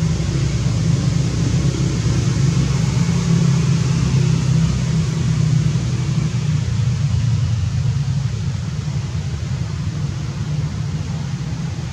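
Steady low rumble with a hiss over it, easing slightly near the end.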